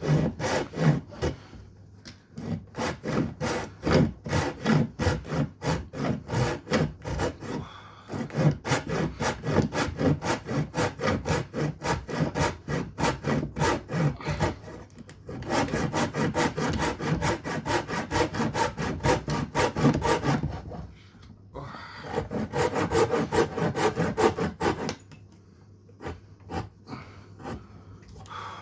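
Hand saw cutting through a wooden log in quick back-and-forth strokes, about three a second, stopping briefly a few times and going quieter near the end.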